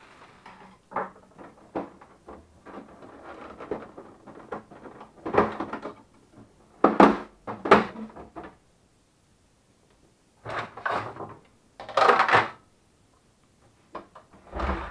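Plastic housing panels of a Melitta Barista TS Smart coffee machine being handled, set down and fitted: an irregular series of knocks, clicks and scraping clatters, the loudest in the middle and again a little before the end.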